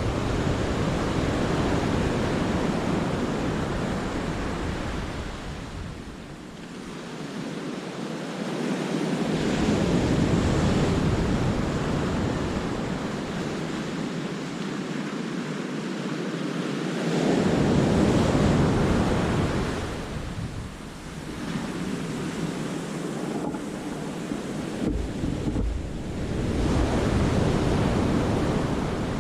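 Sea waves surging and washing onto the rocks and shingle of a cove, swelling and ebbing three times, with wind buffeting the microphone in a low rumble that comes and goes.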